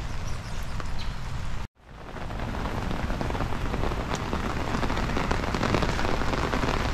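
Heavy rain falling on open water: a steady hiss of drops striking the surface, with a low rumble underneath. The sound drops out for an instant just under two seconds in, then returns and grows louder.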